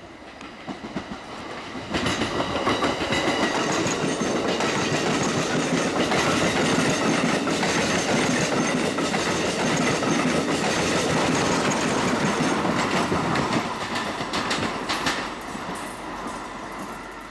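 Train passing at speed, its wheels clattering rapidly over the rails. It comes in suddenly about two seconds in, holds loud, then eases off near the end as it goes by.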